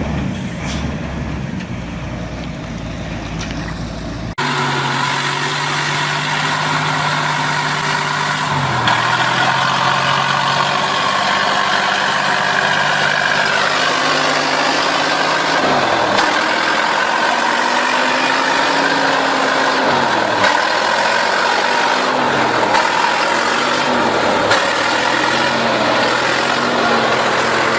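Heavy vehicle engine running, with an abrupt change about four seconds in; after it the engine note dips and rises several times as it revs up and down.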